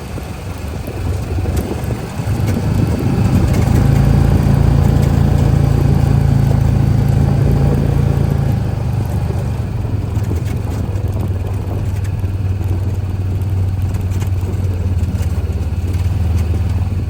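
Kubota tractor's diesel engine running steadily. It speeds up and grows louder about three seconds in, then settles back a little about nine seconds in.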